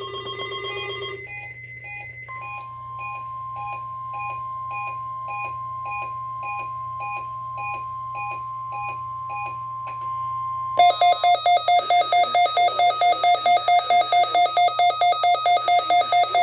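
NOAA Weather Radio warning alarm tone: a steady single high tone held for about nine seconds, with a quieter beep about once a second beneath it. Near the end of the tone a weather-alert receiver's own alarm goes off, activated by the tone: loud and pulsing about four or five times a second.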